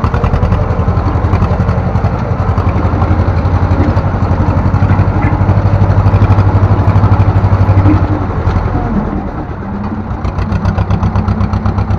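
Ursus C-330's two-cylinder air-cooled diesel running steadily under load with a fast pulsing beat, pulling a three-furrow plough, heard from inside the cab. It eases off about eight seconds in and picks up again near the end.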